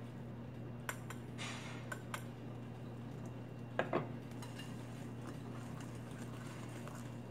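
A utensil stirring cake batter by hand in a glass mixing bowl, with a few light clinks against the bowl and a louder double clink about four seconds in. A low steady hum lies underneath.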